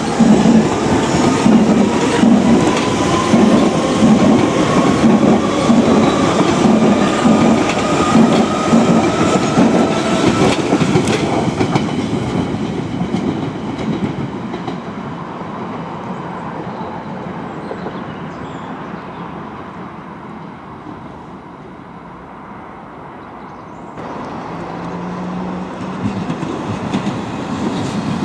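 A London Underground Central Line 1992 stock train pulling out, its traction motors whining steadily higher in pitch as it gathers speed, with a rhythmic clatter of wheels over rail joints about once a second. The sound fades as it draws away. Near the end another train is heard approaching.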